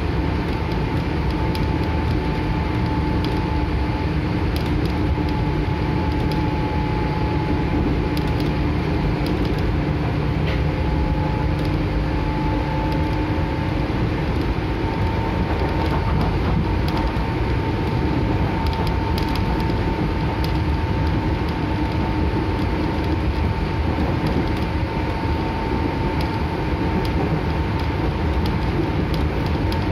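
JR 205-0 series electric multiple unit running at speed, heard from inside the car: a steady motor whine over the rumble of the wheels and running gear. The whine rises a little in pitch about halfway through as the train gains speed.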